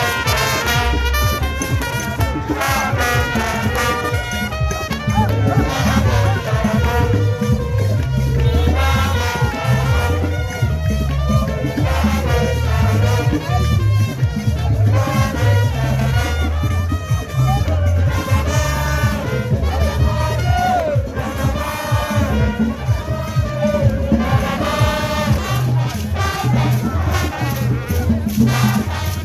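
Loud dance music with a heavy, pulsing bass beat and a melody running over it.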